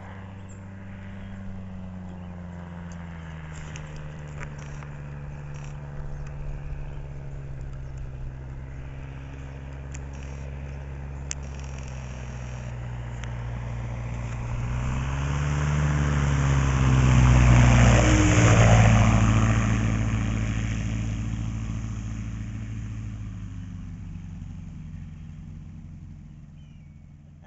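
Kolb Kolbra ultralight's engine running steadily as the aircraft comes in low, growing louder until it passes close about two-thirds of the way through with a sudden drop in pitch, then fading away.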